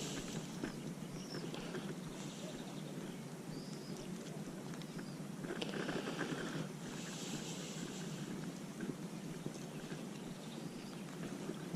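Steady rain pattering, a dense crackle of small drops, with a few short brighter hisses along the way.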